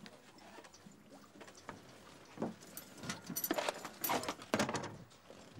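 A knife is knocked loose on a sailboat and falls among the ropes onto the wooden deck, making a run of short knocks and rattles through the second half. Under it, water laps faintly at the hull.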